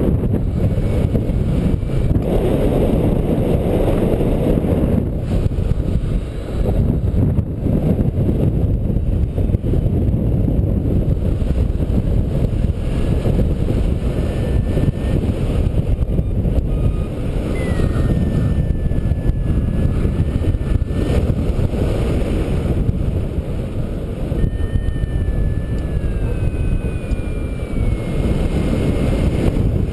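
Airflow rushing over the camera's microphone on a paraglider in flight: a steady low rumbling wind noise. Faint thin whistling tones slide downward in pitch now and then in the second half.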